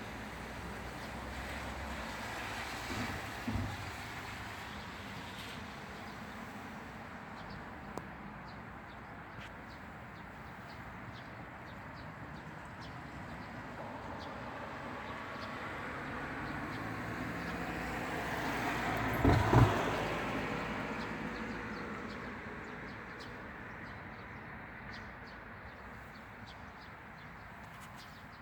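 A road vehicle passing: a broad rushing noise that slowly swells, peaks about two-thirds of the way through with a couple of thumps, then fades away.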